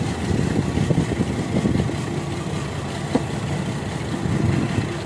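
GMC Jimmy engine idling roughly and unevenly, missing on a cylinder: a misfire, while the ignition coil connectors are pulled one at a time to find the dead cylinder. One sharp click about three seconds in.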